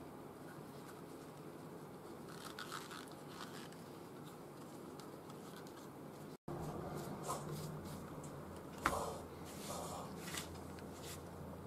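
Faint handling noises of a leather sheath and hands at a workbench: light scrapes and rustles. After a brief cut-out the rustling is a little louder, with one sharp click about nine seconds in.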